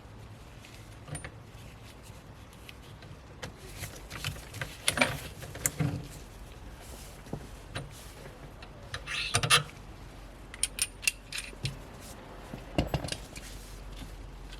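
Hands working on car console trim and wiring: scattered clicks, taps and small rattles of plastic parts and connectors, with louder clusters about five seconds and nine to ten seconds in.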